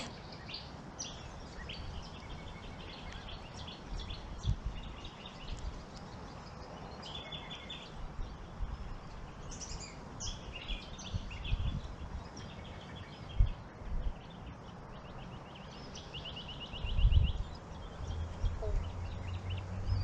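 Small birds chirping and trilling all through, many short high calls and quick rattling trills overlapping. A few low dull thumps come in between, the loudest about two-thirds of the way in: boot footsteps on the wooden boardwalk.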